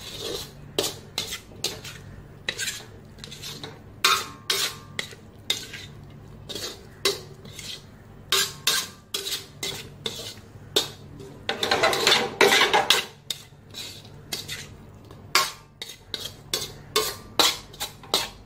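A metal spatula scraping and clanking against a steel wok while the chicken gizzard stir-fry is tossed. The strokes are irregular, about two or three a second, with one longer scrape about twelve seconds in.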